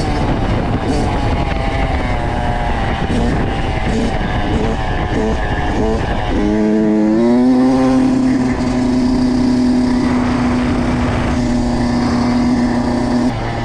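Kawasaki KX85's single-cylinder two-stroke engine at high revs, its pitch rising and falling as the throttle is worked. About halfway through it climbs and holds one steady high note for about six seconds, then drops off near the end.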